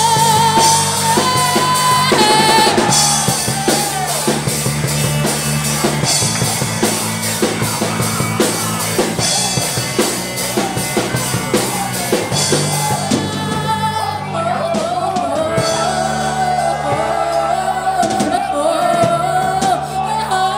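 Live worship band playing: a woman sings through a microphone over drum kit, electric guitar and bass. She holds a long wavering note at the start, the drums carry a steady beat through the middle, and her singing comes back in the second half.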